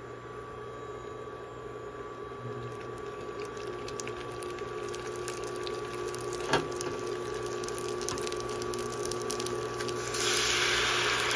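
Gyoza frying in oil in a pan on an induction cooktop: the oil sizzles and crackles, growing louder, over the hob's steady hum, with one sharp click a little past halfway. About ten seconds in, water ladled into the hot pan sets off a loud steaming hiss.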